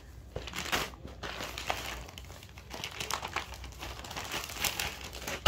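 Irregular crinkling and rustling of cloth being handled, as the next unstitched lawn suit is unfolded and laid out, with one sharp knock at the very end.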